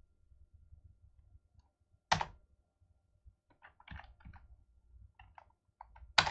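Computer keyboard typing: one sharp, loud keystroke about two seconds in, then scattered runs of lighter key taps, and another sharp keystroke at the very end.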